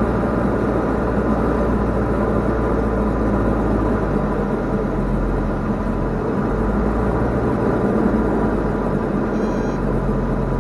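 Diamond DA40's piston engine and propeller running steadily at reduced landing power, heard from inside the cabin, with a constant rush of wind noise, as the plane floats over the runway in the flare.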